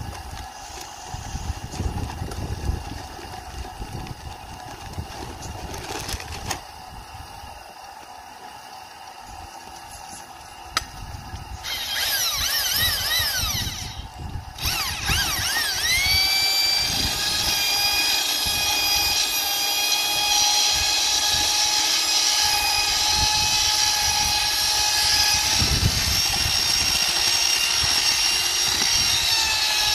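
Electric drill with a mixing paddle stirring ceramic tile adhesive (thinset) in a plastic bucket. The motor starts about twelve seconds in with its speed rising and falling, stops briefly, then runs steadily at speed to the end. Before it starts there are only light handling knocks.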